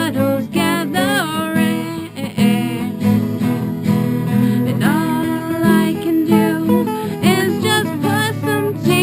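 Song with a strummed acoustic guitar and a singing voice.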